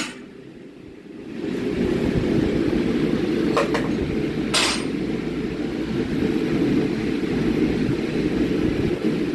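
Steady low roar of forge equipment, quieter for the first second or so and then running evenly, with two sharp metal clinks from the forging work about three and a half and four and a half seconds in, the second ringing briefly.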